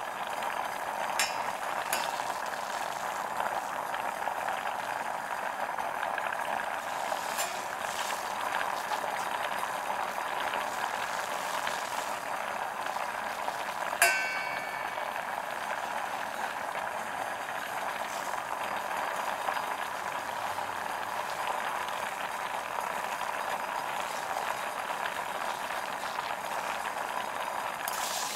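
Broth boiling hard in a stainless steel saucepan, a steady bubbling hiss. There are a few faint ticks early on and one sharp metallic clink of a ladle against the pot about halfway through.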